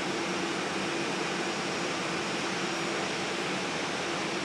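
Airbus A320 airliner's twin jet engines running steadily at low thrust while it taxis: an even rush of jet noise with a faint, unchanging hum.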